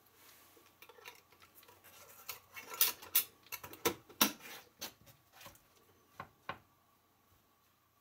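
The metal screw band of a glass mason jar clinking and scraping as it is set over the flat lid and twisted down onto the jar's threads. It is a busy run of sharp clicks and metal-on-glass scrapes, loudest in the middle, that stops about a second and a half before the end.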